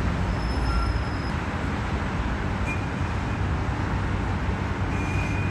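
Steady road-traffic rumble as a Dubai Tram rolls slowly in toward the stop, with a few faint, brief high tones over it.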